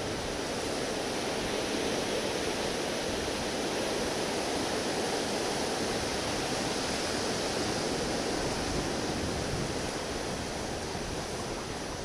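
Steady wash of sea surf against the rocks mixed with wind buffeting the camera's small microphone, an even rushing noise with no distinct events.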